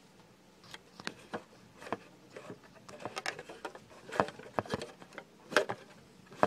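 Handling noise from a handheld phone being moved and adjusted: scattered, irregular clicks and knocks that come more often and louder towards the end.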